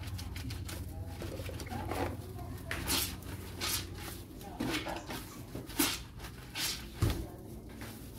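Kitchen handling noises: a plastic colander and items being moved about, with a few short clicks and knocks, over a steady low hum.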